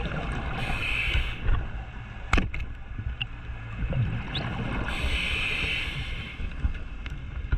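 Scuba diver breathing underwater, heard through a camera housing: two hissing inhalations through the regulator about four seconds apart over a low rumble, with a sharp click about two seconds in.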